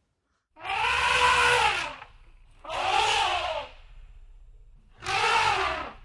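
Elephant trumpeting three times, each call about a second long and rising then falling in pitch, over a low rumble.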